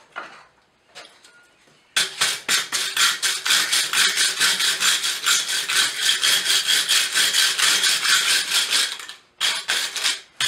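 Hand-held steel wire brush scrubbed fast back and forth over the rolled-out rim of a steel pipe cupping tool, about five scraping strokes a second, cleaning up the forged metal. It starts about two seconds in and pauses briefly near the end.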